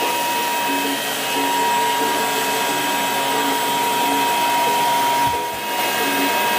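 Samsung Power Gun cordless stick vacuum running steadily, a rushing air noise with a steady high whine. It dips briefly about five seconds in, then carries on.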